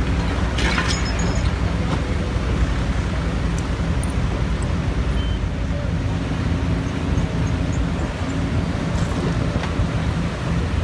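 Diesel engine of a large Cat tracked excavator running steadily, with a short knock about a second in.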